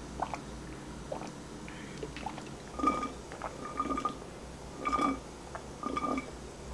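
Iced drink sucked through a plastic straw from a tumbler: a few small clicks, then from about halfway a run of short slurping sips roughly once a second.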